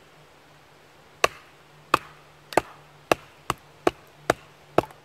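Batoning: a wooden baton knocking on the spine of a Hultafors OK4 bushcraft knife to drive its blade down through a piece of maple. There are eight sharp knocks, the first about a second in, coming quicker as it goes.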